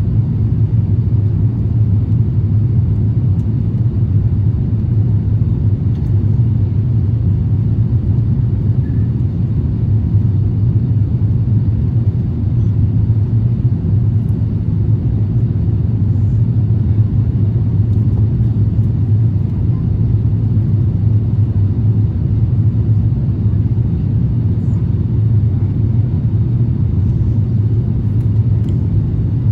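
Steady low rumble of cabin noise inside an Airbus A350-1000 airliner, even and unchanging throughout.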